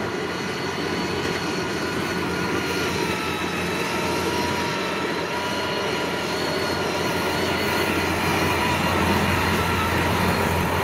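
Tracked Kubota combine harvester travelling loaded across a harvested rice field: its diesel engine runs steadily under a high, steady whine from the drive, growing a little louder near the end as it comes close.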